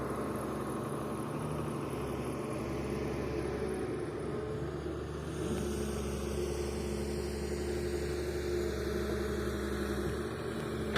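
Excavator engine running steadily at low speed, then picking up a little in speed about five and a half seconds in and holding there.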